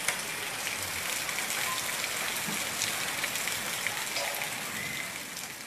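Heavy rain pouring onto a concrete yard: a dense steady hiss with scattered sharp drop hits, fading near the end.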